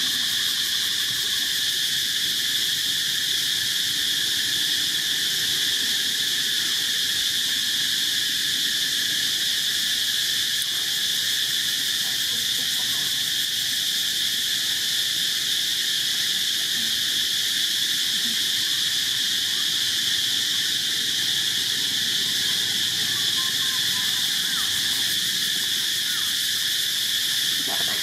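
Steady insect chorus, a continuous high-pitched buzz that does not let up.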